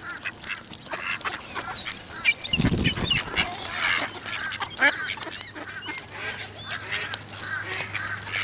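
A crowd of mallards quacking and jostling, with many quick sharp taps of bills pecking food off concrete and a short low muffled thump about two and a half seconds in.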